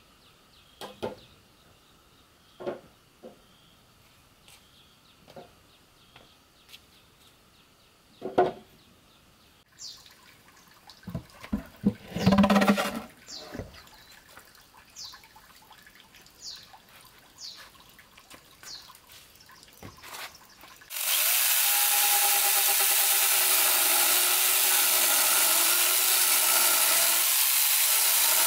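Corded electric chainsaw starting up about two-thirds of the way in and running steadily. Before it, scattered knocks and a heavier clatter as a rough wooden bench is handled on a concrete floor.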